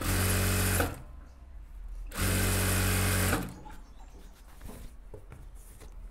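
Industrial single-needle sewing machine running in two short bursts of about a second each, stitching a narrow rolled hem along the fabric edge. After the second burst there are only faint clicks as the cloth is handled.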